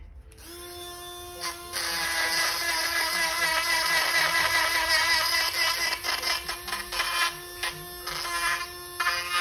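Ryobi 18V cordless rotary tool starting up about half a second in and running at a steady high whine, its bit grinding into green plastic; the grinding is loudest for a few seconds, then comes and goes as the bit is touched on and off the work.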